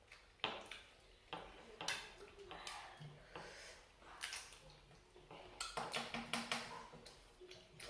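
Close-up eating sounds: irregular sharp clicks and smacks of someone chewing and cracking the shells of a prawn's thick legs to get at the meat inside.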